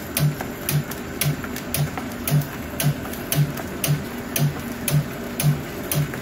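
Welly S-3 grain puffing machine running as it extrudes brown rice snacks, with a sharp, regular knock about twice a second over a steady hum.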